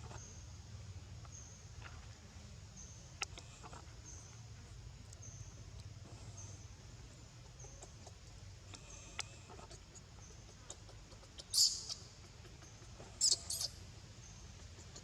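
Baby monkey giving short high-pitched squeaks, once and then twice in quick succession near the end, over a low steady hum and a faint, evenly repeating high chirp.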